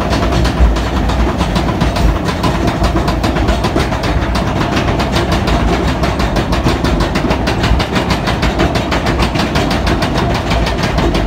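Log flume boat being hauled up a chain lift hill: the lift chain runs with a steady, rapid clatter of even clacks, several a second.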